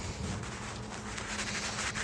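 Faint rubbing and scraping of hands and a screwdriver working at a screw in the plastic housing of a Robot Coupe stick blender being taken apart, with small irregular clicks over a low steady hum.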